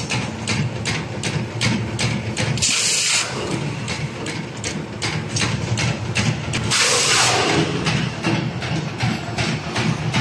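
Production machine running with a rhythmic clacking, about four strokes a second, and two short loud hisses, one near the start and one past the middle.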